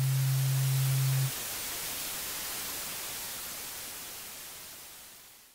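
Static-like hiss that fades out slowly over several seconds, with a steady low hum during roughly the first second.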